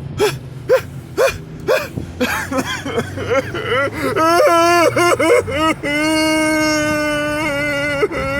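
A person's voice crying out: a run of short cries in the first couple of seconds, wavering wails from about four seconds in, then one long held high-pitched wail.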